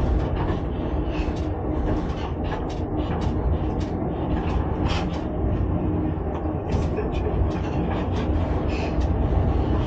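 Heritage electric railcar running along the track, heard inside its driving cab: a steady low rumble of wheels on rail with frequent short rattles and clicks throughout.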